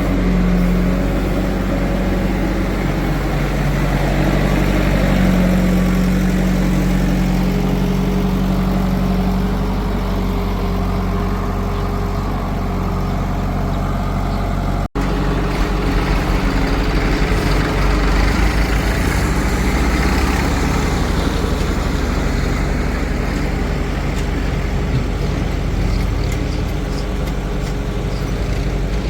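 Heavy diesel machinery running steadily, a backhoe loader and tractor engines working, with a brief cut-out about halfway through.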